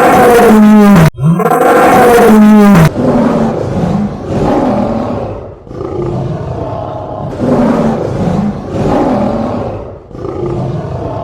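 Lion roaring: two long, loud roars, then a series of shorter, quieter grunting roars.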